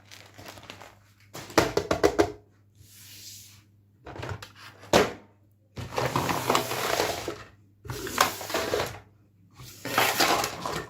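Toy packaging being handled and opened: irregular bursts of plastic and cardboard crinkling and rustling, with quick clusters of clicks.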